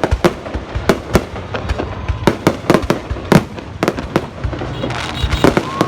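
Fireworks bursting overhead: a rapid, uneven series of sharp bangs and pops, some overlapping, over a continuous crackling rumble.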